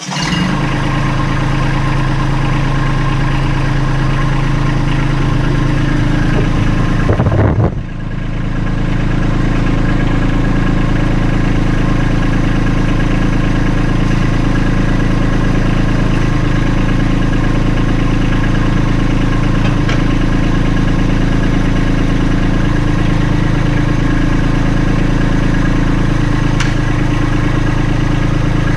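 Kubota B2650 compact tractor's three-cylinder diesel engine starting and then running steadily at idle, with a brief dip and shift in its note about seven to eight seconds in.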